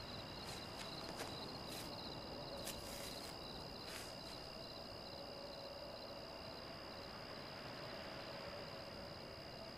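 Faint night chorus of crickets chirping steadily, with a few soft clicks in the first four seconds.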